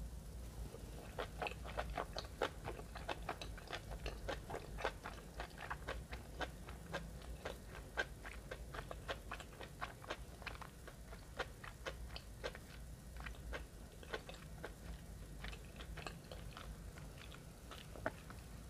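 Close-miked chewing of a mouthful of sushi: a dense run of small wet clicks and smacks that starts about a second in and thins out toward the end.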